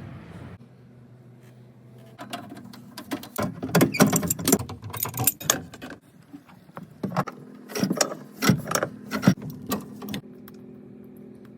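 Irregular metal clanks and knocks from plumbing work on a water heater, in two flurries over several seconds, over a low steady hum.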